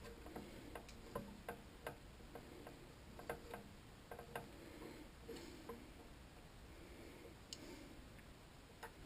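Faint, irregular light clicks and taps, a dozen or so spread unevenly, over a low background hum.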